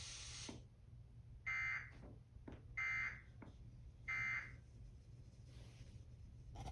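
Emergency Alert System end-of-message data tones: three short, identical bursts of harsh digital warbling, about a second apart, signalling that the alert has ended.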